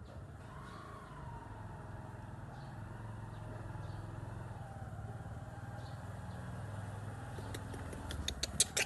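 A vehicle engine droning steadily in the background, with a faint whine that rises briefly and then slowly falls. Near the end there is a quick run of sharp clicks.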